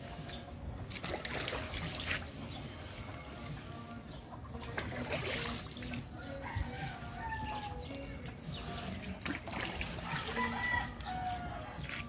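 Chickens clucking and calling now and then, mostly in the second half, over a steady trickle of water.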